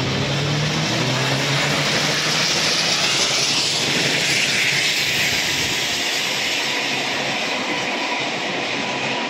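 Steam locomotive 3801, a streamlined C38-class Pacific, passing close by with its train of carriages: a steady rushing noise of the engine and wheels on the rails, loudest a few seconds in as the locomotive goes by, then the carriages rolling past.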